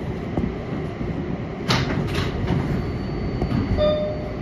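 Cab interior sound of an R188 subway train: a steady low rumble from the car's equipment, with two short hissing bursts about two seconds in and a brief tone near the end.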